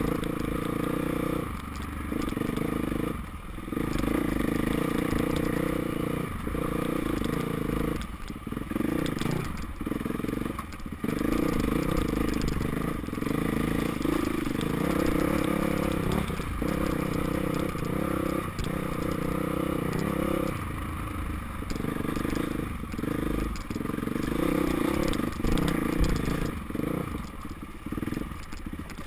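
KTM dirt bike engine running under changing throttle, pulling on and easing off every few seconds, with rocks and gravel scraping and clattering under the tyres.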